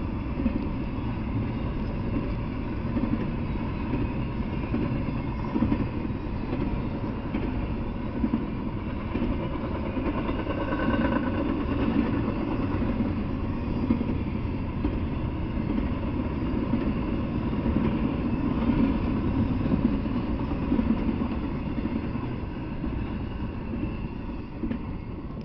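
Double-stack intermodal container freight train passing: a steady rumble of wheels on rails that eases off near the end as the last cars go by.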